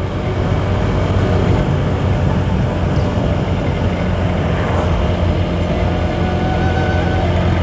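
Motorcycle engine running steadily at cruising speed while riding, with road and wind noise.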